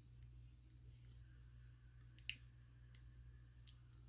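Near silence with a steady low hum, broken by a few faint sharp clicks as a replacement battery is handled and seated inside an opened MacBook. One click a little past two seconds in is louder than the rest.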